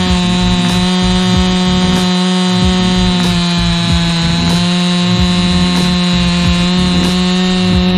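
Stihl MS261C two-stroke chainsaw at full throttle, cutting through a log. The engine note holds steady under load throughout.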